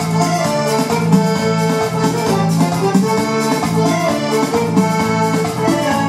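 Korg Pa-series arranger keyboard playing an instrumental break, its accordion voice carrying the melody over held chords and a steady auto-accompaniment beat.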